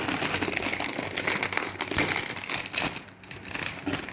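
A plastic snack bag crinkling loudly as it is torn open and handled, with rapid uneven crackles.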